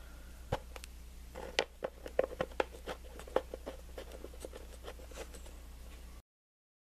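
A run of light, irregular clicks and taps over a low steady hum, the sound cutting off abruptly near the end.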